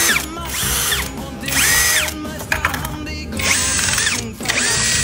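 A power drill run in repeated short bursts, its motor whine rising, holding steady and falling away with each trigger pull, over background music.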